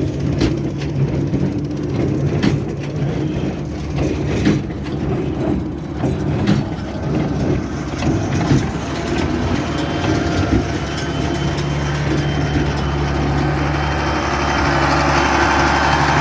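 John Deere tractor engine running steadily with the Krone baler machinery going, sharp clanks and knocks in the first half, and a hiss that grows louder over the last few seconds.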